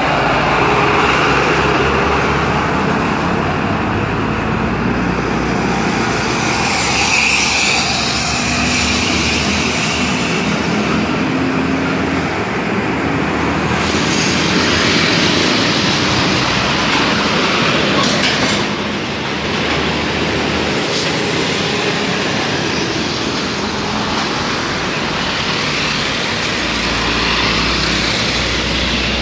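Heavy road traffic passing close by: diesel trucks and motorcycles driving past, with continuous engine and tyre noise.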